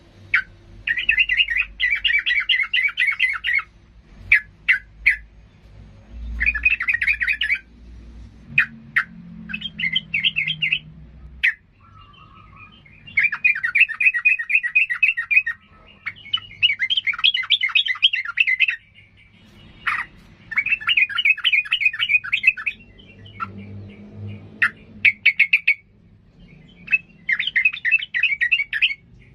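Caged yellow-vented bulbul (trucukan) singing in its agitated 'gacor emosi' manner: about eight loud phrases of fast, chattering repeated notes, each a couple of seconds long, broken by short sharp single calls.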